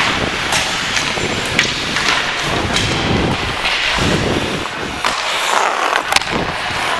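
Ice hockey skate blades scraping and carving on the ice in repeated strides, heard close from the skater's own head, with several sharp clicks of stick or puck on the ice.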